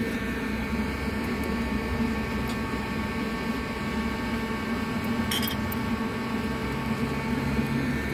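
Light clinks of cutlery and crockery on a wooden table, the clearest about five seconds in, over a steady machine hum.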